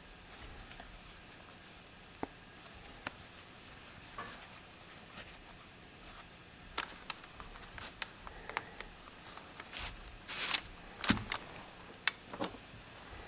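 Scattered small clicks, taps and short rustles of hand work, sparse at first and busier in the second half, with a brief louder rustle about ten and a half seconds in.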